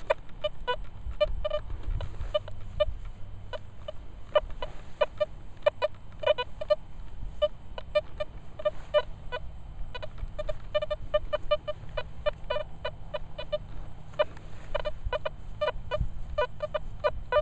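Nokta Velox One metal detector giving short, mid-pitched beeps, several a second and irregular, as the coil is swept over a dug hole and its plug of soil. The owner takes the signal to still be down in the hole.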